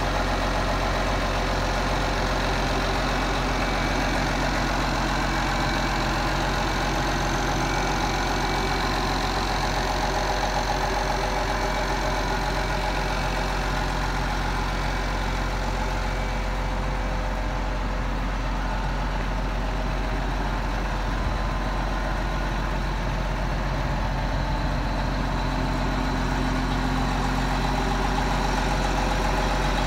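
2011 Case IH Magnum 280 tractor's six-cylinder diesel engine idling steadily.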